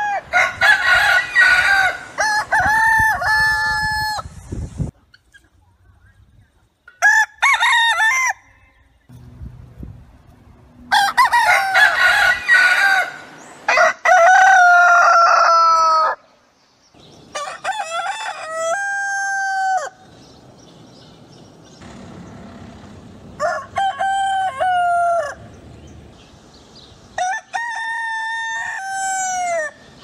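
Domestic roosters crowing, about six cock-a-doodle-doos one after another with short pauses between, each call ending in a falling note.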